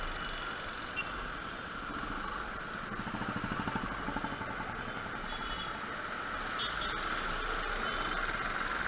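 Motor scooter riding slowly through busy two-wheeler traffic: steady engine and road noise. A nearby engine throbs louder about three to four seconds in, and a few faint, short high beeps sound in the second half.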